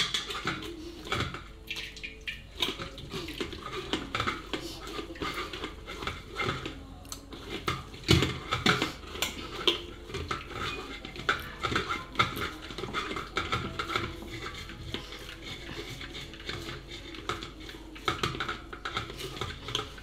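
Hands kneading and squeezing wet grated coconut in a mesh strainer over a plastic basin: irregular squelching, rustling and small knocks against the basin, with a sharper knock about eight seconds in. This is the first pressing, squeezing the thick coconut milk out of the coconut.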